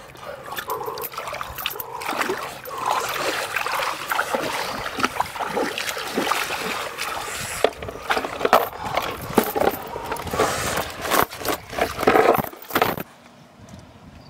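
Water splashing and sloshing, with irregular wet knocks and clicks, as a large hooked catfish is held and handled. The sound stops abruptly about a second before the end.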